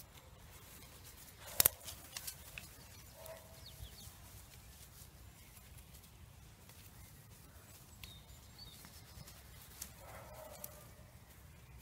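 Quiet outdoor background with one sharp knock about a second and a half in and a few lighter clicks and taps after it, with faint bird chirps.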